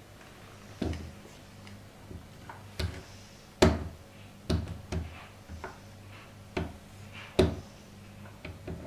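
Irregular metallic clicks and knocks of a snib lifter tool being worked against a Yale night latch to undo its snib, with two sharper, louder knocks, one about a third of the way in and one near three-quarters, over a faint steady low hum.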